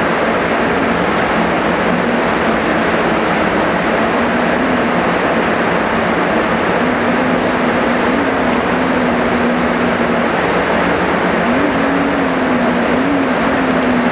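Heavy rain falling in a steady, even hiss. Underneath it a faint low tone wavers slowly up and down in pitch.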